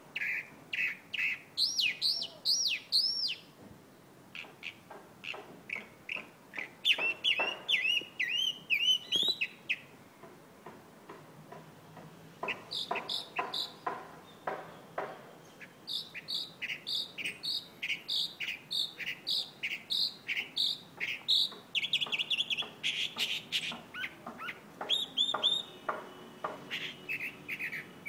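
Chalk-browed mockingbird singing: a varied song in which each note or phrase is repeated several times in quick succession before switching to another, delivered in bouts with short pauses between them.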